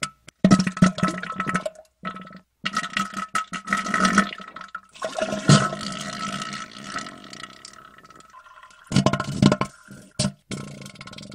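Crude toilet noises: rasping, flatulent bursts and watery splashing, coming in several bouts with short breaks between.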